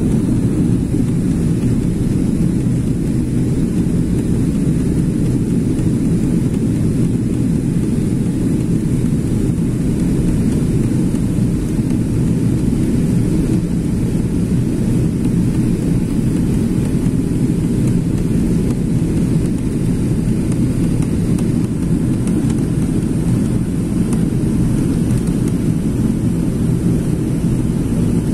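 Steady low drone inside the cabin of a Boeing 777-300ER in flight: engine and airflow noise heard from a window seat beside the wing and engine.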